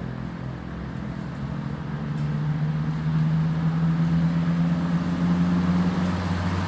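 A motor vehicle engine running steadily, a low hum that grows louder about two seconds in.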